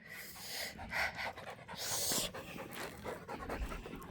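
Dog panting in quick, uneven breaths, winded from running after a thrown ball.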